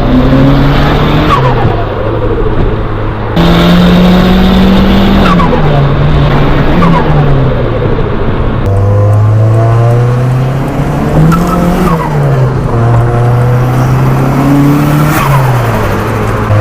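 Turbocharged Ford Escort Zetec engine heard from inside the car, its note rising and falling through several throttle lifts. At each lift the turbo whistle falls away with a fluttering chatter. The owner gets this compressor flutter by running without a blow-off valve and says it strains the turbo.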